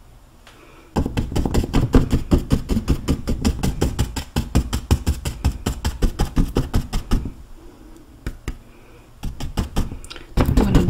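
Paintbrush dabbing paint onto a stretched canvas in quick taps, several a second, starting about a second in; the tapping pauses for a couple of seconds and picks up again near the end.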